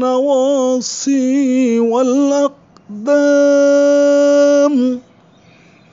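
Solo Quranic recitation (tilawah): one voice chanting a drawn-out phrase with wavering, ornamented pitch. It breaks off for a breath about two and a half seconds in, then holds one long steady note that ends about five seconds in.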